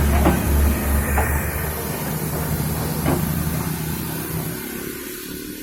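Komatsu PC200-7 excavator's six-cylinder diesel engine running steadily, with a few sharp knocks over it; the engine sound dies away near the end.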